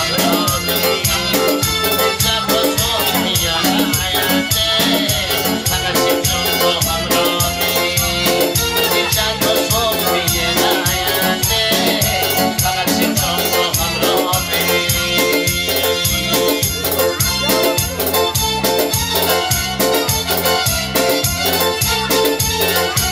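Instrumental music with a keyboard melody over a fast, steady beat and pulsing bass.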